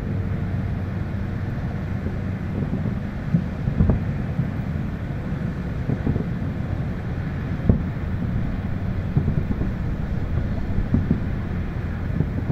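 Fireworks bursting far off, heard as irregular thumps every few seconds over a steady low rumble of city noise and wind on the microphone.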